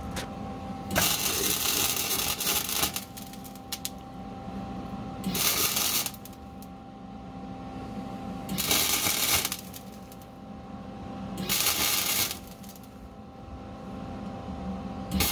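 Welding arc crackling in bursts as subframe connector rails are welded to the car's floor: one run of about two seconds, then shorter bursts every few seconds. A steady hum fills the gaps.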